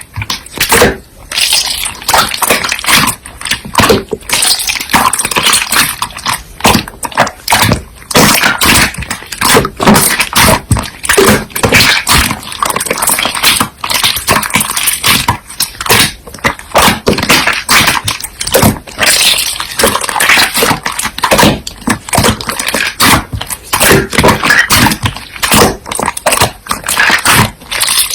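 Slime being squeezed, stretched and folded by hand: a dense, irregular run of wet squishing and popping crackles.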